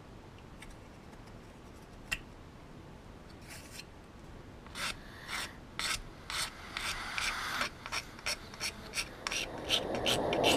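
Needle file stroked back and forth over a 3D-printed plastic part, starting about halfway through at roughly two strokes a second and quickening near the end. Before it, faint scraping with one sharp click.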